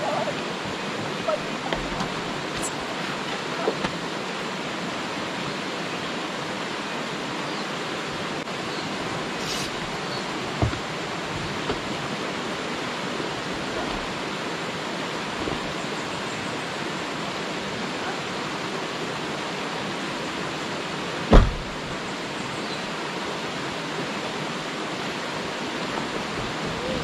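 Steady rushing of a nearby river, with a few small clicks and one sharp thump about twenty seconds in.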